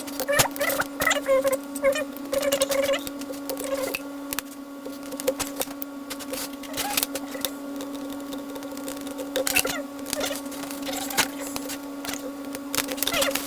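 A steady electrical hum under irregular light clicks and taps, with a few faint wavering pitched sounds in the first three seconds.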